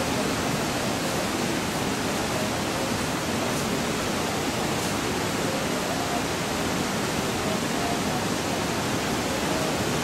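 Steady rush of a fast-flowing river, an even, unbroken noise.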